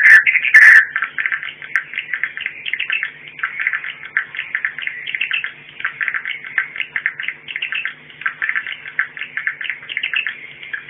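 Swiftlet call recording: a dense, unbroken twitter of rapid chirps from many swiftlets, the kind of lure call played to draw swiftlets into a nesting house. Two loud crackles come in the first second, over a faint steady hum.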